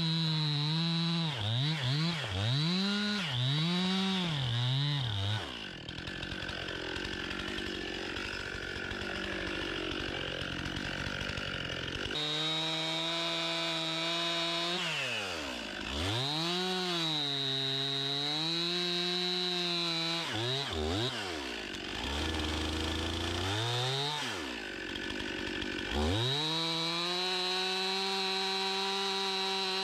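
Stihl two-stroke chainsaw bucking a fallen aspen log, its engine note rising and falling as the throttle is opened and eased off. From about six seconds in, the steady note turns rougher and lower for several seconds while the chain works through the wood, then it runs at high revs again, dropping sharply a few times.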